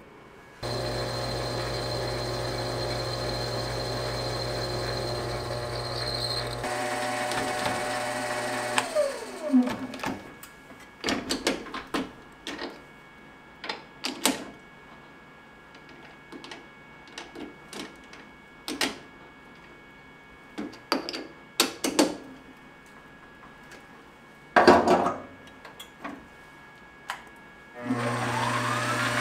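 Benchtop metal lathe running with a steady motor hum, then spinning down with a falling whine about nine seconds in. A series of sharp metallic clicks and knocks follows as the chuck is worked with its chuck key, and near the end the lathe starts up again with a rising whine.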